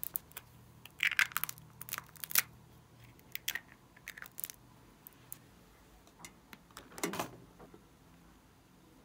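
Small plastic glitter jar being handled, opened and tapped over a tray: a scatter of sharp plastic clicks and crackles. The densest run of clicks comes a second or two in, and a longer, lower scrape comes about seven seconds in.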